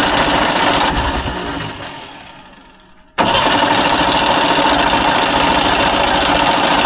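Trabant 601's two-cylinder two-stroke engine being cranked over on its electric starter without catching, a rapid chugging. The sound dies away over a couple of seconds, then cranking starts again abruptly about three seconds in.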